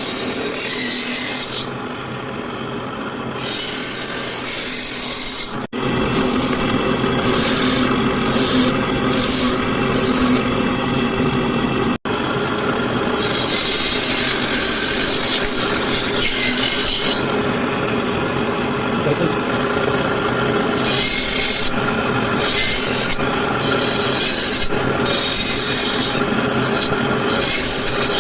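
Wood being worked with tools, a continuous rubbing, rasping sound over a steady machine hum, broken by two abrupt cuts about six and twelve seconds in.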